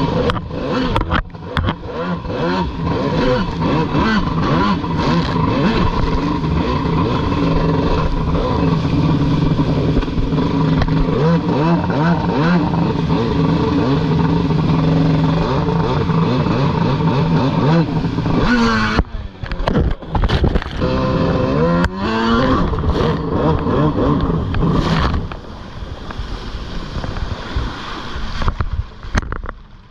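Freestyle stand-up jet ski engines running hard on the water, the pitch rising and falling with the throttle. About two-thirds of the way through come a few quick revs up and down, and the engine noise is lower for the last few seconds.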